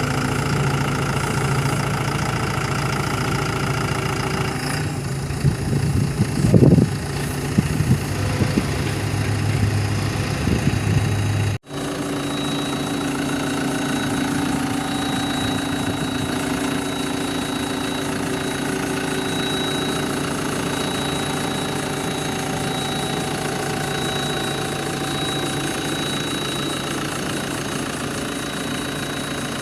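Bobcat B900 backhoe loader's diesel engine running steadily, with a few louder knocks and a short wavering sound between about five and eight seconds in. The sound drops out for an instant near twelve seconds, then the engine runs on with a slightly different note.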